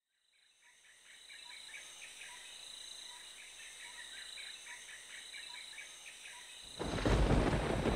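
Crickets and insects chirping, fading in from silence with a steady, quick chirping rhythm. About seven seconds in, a sudden loud crash of thunder breaks in as rain starts.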